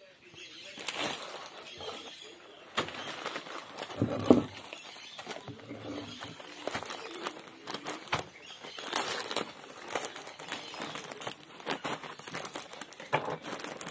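Clear plastic bag of small decorative pebbles being handled and untied, crinkling and rustling in irregular crackles.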